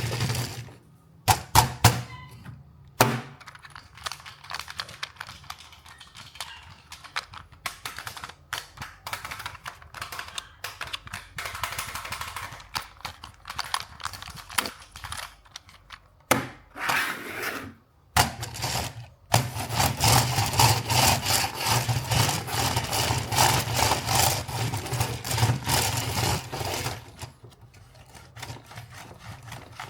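Toy packaging handled and opened: cardboard and plastic rustling, scraping and crackling, with a few sharp clicks in the first few seconds and a denser stretch of rubbing noise later on.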